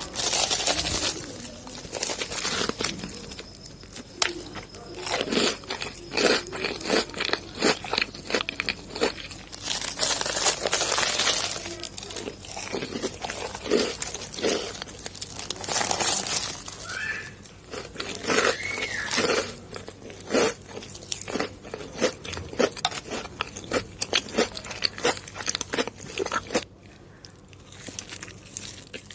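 Crunchy food being bitten and chewed close to the microphone: irregular crisp crunches, with a few denser bursts of crunching.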